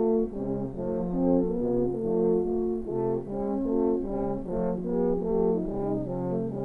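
Music played on several brass horns together, overlapping held notes that change about every half second.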